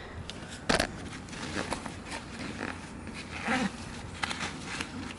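Pembroke Welsh corgi puppy stirring inside a zipped fabric-and-mesh pet carrier: scattered rustles and scratches, a sharp knock about a second in, and a short low vocal sound past the middle.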